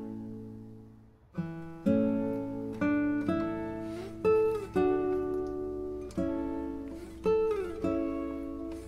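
Background music: acoustic guitar picking notes and chords, fading down and starting again about a second and a half in.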